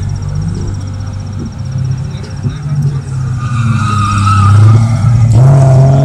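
A car engine running and revving as the car is driven hard around a tight tarmac course, with tyres squealing briefly around the middle. The engine note climbs as it accelerates near the end.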